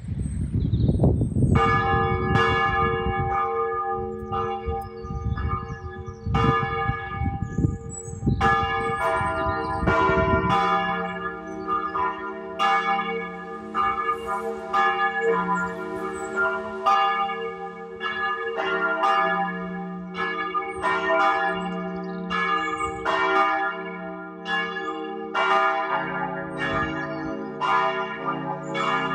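Church bells pealing: several bells ringing together, strikes following one another about once a second, their tones overlapping and hanging on. A low rumble lies under the first ten seconds and then stops.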